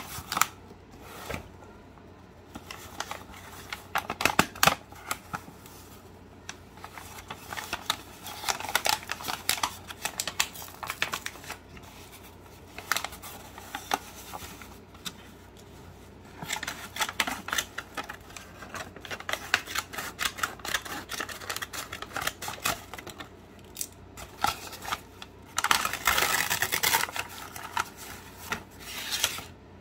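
Brown kraft packing paper rustling and crinkling as it is pulled out of a cardboard box and unwrapped from around a potted plant, in irregular bouts with short pauses, loudest near the end.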